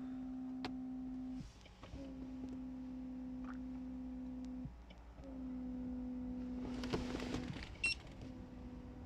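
A steady electric hum that stops and starts again in stretches of about two and a half seconds with short breaks, each stretch beginning a touch higher in pitch before settling.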